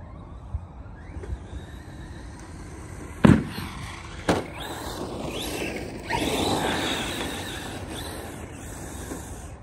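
Arrma Mojave 4S radio-controlled short course truck: its electric motor whines up and down in pitch. A sharp thump about three seconds in, as it hits the ground after the jump, is followed by a smaller one a second later. From about six seconds in a louder stretch of motor whine and tyre noise follows as it drives on across the grass.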